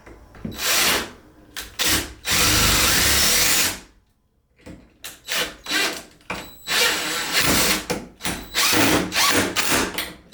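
Power drill driving a big screw into a wooden door frame. It runs in a few short bursts and one longer run of about a second and a half, pauses briefly, then pulses in many quick trigger bursts as the screw is set. Part of the driving is done spinning backwards, which helps keep the wood from splitting.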